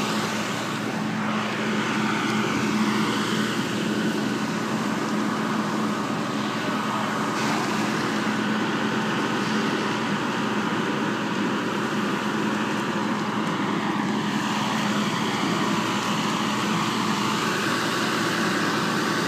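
Fire engine's engine and pump running steadily, a constant low hum under an even hiss.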